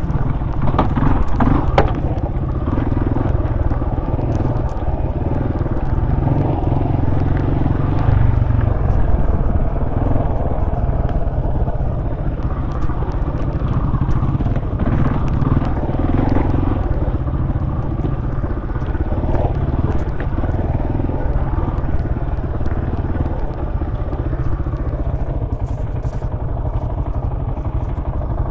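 Off-road motorcycle engine running steadily as the bike creeps over a rocky trail, with occasional knocks and rattles from the bike over the stones.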